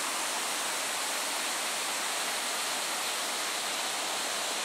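Small waterfall on a rocky forest stream: water rushing and splashing over the stones in a steady, even rush.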